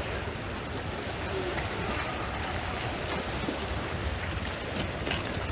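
Steady wind and small waves washing on a pebble shore, with wind rumbling on the microphone.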